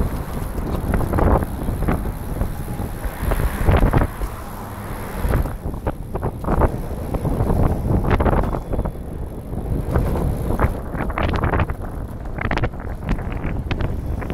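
Wind buffeting the microphone of a camera mounted on a moving recumbent trike, in uneven gusts.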